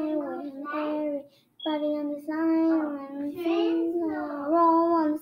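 A young girl singing solo, with no accompaniment heard: held notes in two phrases, with a short pause for breath about a second and a half in.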